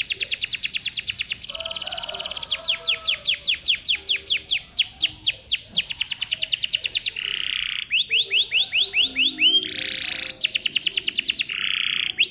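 Domestic canary in full song: a long run of rapid trills (rolls), with fast repeated notes, a stretch of slower downward-sweeping notes, short buzzy notes and upward-sweeping notes, the phrase changing every second or two.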